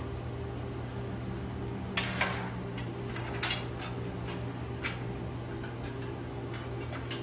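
Sharp metallic clinks and taps as steel bracket parts and locking pliers are handled and set on a steel welding table: a pair of clinks about two seconds in, then single ones. A steady low electrical hum runs underneath.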